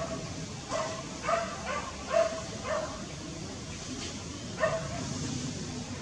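An animal calling in a series of short yelps, each a single steady note, about every half second for the first three seconds, then one more near the end.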